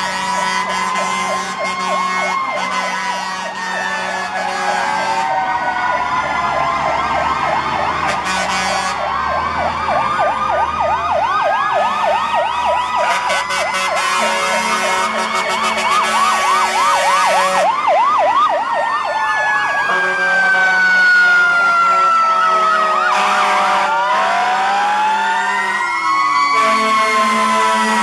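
Several fire truck sirens sounding together, overlapping slow rising-and-falling wails with a fast yelp in the middle. About twenty seconds in, one siren winds down in a long falling tone. Truck engines run underneath.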